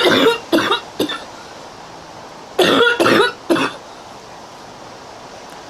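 A young woman coughing in hard fits: a run of three coughs right at the start, then another run of three about two and a half seconds in, over a steady background hiss.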